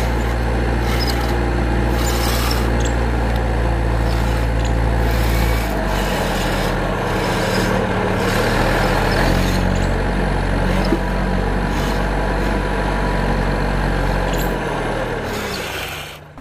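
Wired remote-control toy excavator running: its motors and gears work the digging arm with a steady mechanical hum. The sound changes about five and a half seconds in and fades out near the end.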